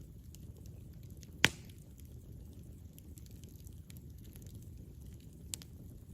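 Campfire burning with a low steady rumble of flames and scattered wood crackles, one loud sharp pop about a second and a half in and a smaller pop near the end.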